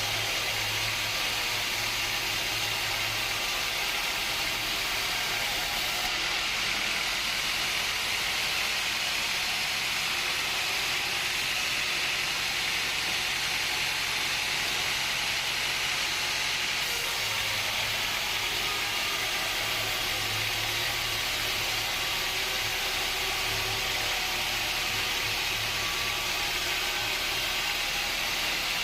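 Sawmill machinery running steadily: a continuous hiss with a low motor hum that drops away for a while mid-way and then comes back.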